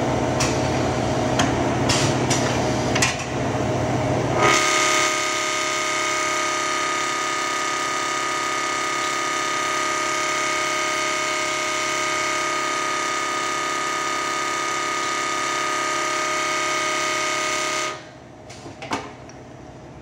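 Automatic flap-wheel wood sanding machine at work. First come mechanical clicks and knocks over a running noise. About four and a half seconds in, a steady whine with several pitches starts as the spinning flap wheel sands the rotating turned wooden part; it cuts off sharply near the end, leaving a few quieter clicks.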